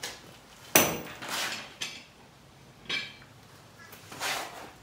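Metal clanks and clinks of tools and new blades against the underside of a zero-turn mower deck as the blades are fitted. A sharp, ringing clank comes about a second in, another ringing clank about three seconds in, and a scrape near the end.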